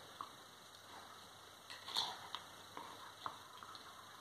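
Two dogs play-fighting: a handful of short, quiet snaps and clicks of their jaws, the loudest about two seconds in.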